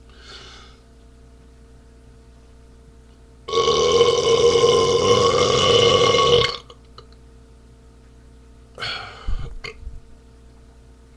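A man's long, loud beer burp lasting about three seconds. A shorter, quieter noise with a low thump follows near the end.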